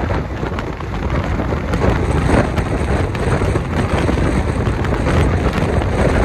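Rush of wind over the microphone and the low rumble of an Indian Railways passenger coach running at speed, recorded from the coach's open door or window, with scattered brief clicks through the steady noise.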